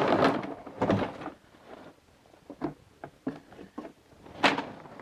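Cardboard scraping and rustling, then scattered knocks and bumps as a battery lawnmower is hauled out of its cardboard box, with the loudest bump about four and a half seconds in.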